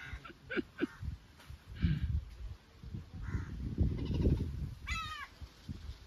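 A crow cawing, a short call of a few quick notes about five seconds in, with fainter calls in the first second. Bursts of low buffeting noise on the microphone in between are the loudest sound.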